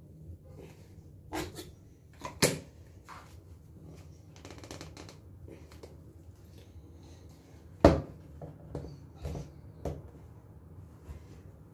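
Scattered plastic clicks and knocks as a children's toothbrush is handled and fiddled with. A few knocks stand out, the loudest about eight seconds in.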